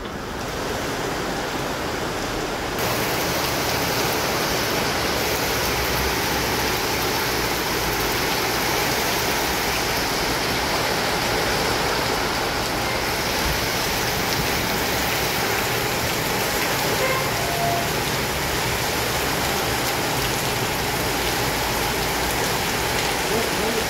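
Heavy rain pouring down on paved ground and parked cars, a dense steady hiss that grows louder about three seconds in.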